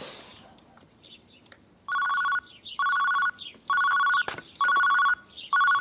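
Telephone ringing with an electronic trill: five short rings, close to one a second, starting about two seconds in, the last one cut short.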